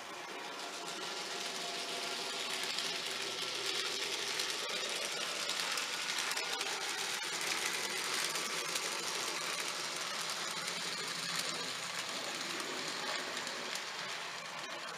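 N gauge model trains running on the layout: a steady whirr of small electric motors and wheels rolling on the track, growing louder a couple of seconds in and easing off near the end.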